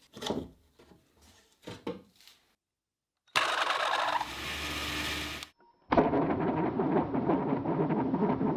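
A few light handling clicks, then a homemade 2 HP bandsaw is switched on: a loud start about three seconds in, and after a cut the saw runs on with a dense, chattering rattle from its V-belt drive. The V-belt slips on the plywood pulleys as the saw starts, which the maker puts down to the high starting torque of its three-phase motor.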